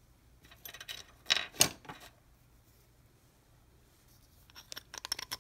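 Light metal clicks and knocks from handling the screws and aluminium housing of an air impact wrench during reassembly. A cluster of clicks with two sharper knocks comes about a second and a half in, and a quicker run of clicks comes near the end.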